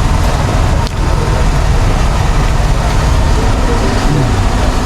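Steady, loud low rumble of street background noise, like road traffic, with no clear beginning or end.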